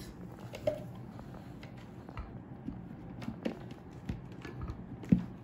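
Scattered light taps and knocks of a plastic lid being fitted onto a glass food-chopper bowl, with one sharper knock about five seconds in, over a faint steady low hum.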